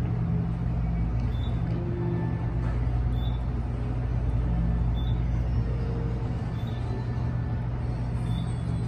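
Traction elevator car travelling down the hoistway: a steady low hum and rumble of the moving cab, with a few faint light ticks.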